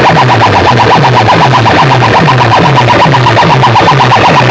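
Very loud electronic dance music blasted through a stack of horn loudspeakers, near full volume, with a bass note that drops in pitch about twice a second under a fast pulsing high note.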